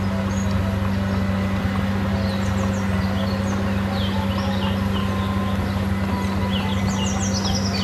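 Crawler bulldozer's diesel engine running steadily under load as the blade pushes a pile of soil, a low hum that holds one pitch. Birds chirp over it.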